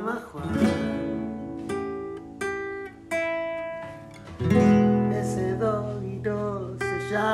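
Two acoustic guitars strumming chords together, each chord struck and left to ring for a second or so before the next.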